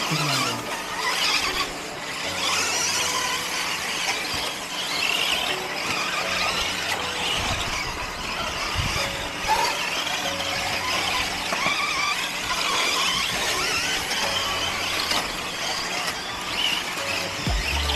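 Several 1/10-scale electric off-road RC buggies running on a dirt track, their motors and drivetrains giving a high-pitched whine that rises and falls as they speed up and slow down.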